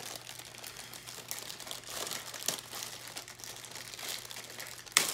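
Thin plastic bag crinkling and rustling as it is handled and worked open, with one sharp snap near the end.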